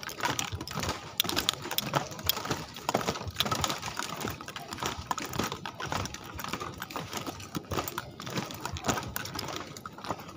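Footsteps on a bamboo-slat boardwalk, the loose slats clacking and knocking underfoot in a quick, irregular run of light clicks.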